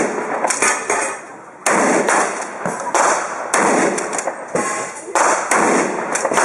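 Shotgun fired repeatedly in quick succession, shots roughly every half second to a second, each with a short echo.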